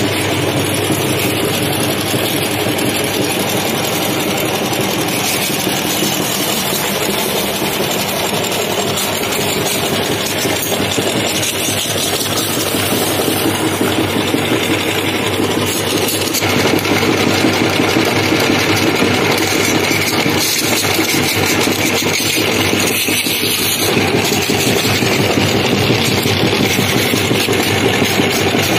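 Belt-driven meat grinder running steadily, grinding crunchy ring chips fed into its hopper. It gets a little louder about halfway through.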